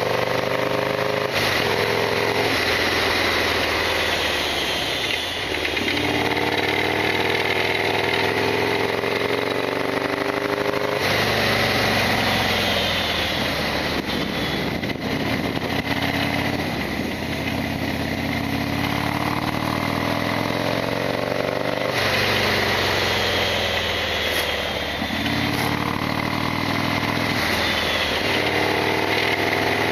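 Harley-Davidson Sportster XL1200R's air-cooled V-twin engine running on the road, its pitch climbing under acceleration and dropping back several times.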